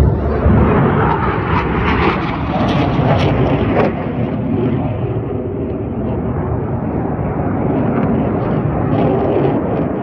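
Jet engine roar from Black Eagles KAI T-50B aerobatic jets flying low past and climbing away. It is loudest and crackling over the first four seconds, then settles into a steadier, slightly softer rumble as the jets draw off.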